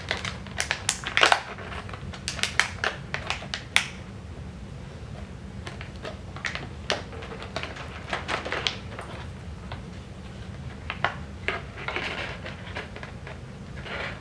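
Coton de Tulear puppies playing: a scatter of light, irregular clicks and crackles, busiest in the first four seconds and sparser after.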